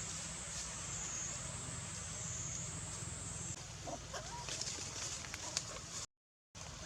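Outdoor animal sounds: a steady high-pitched drone that fades out a few seconds in, then a few short animal calls about four seconds in. The audio cuts out completely for a moment near the end.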